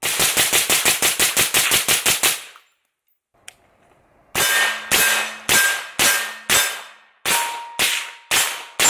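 Suppressed AR-15 rifles firing supersonic rounds: the suppressors muffle the muzzle blast but each bullet still cracks. First comes a fast string of about sixteen shots in under two and a half seconds; after a short pause come slower shots about two a second, each with a short ringing tail.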